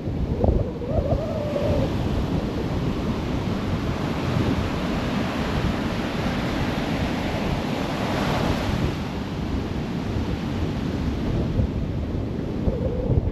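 Ocean surf washing ashore with wind buffeting the microphone. The surf swells into a louder wave break about eight seconds in.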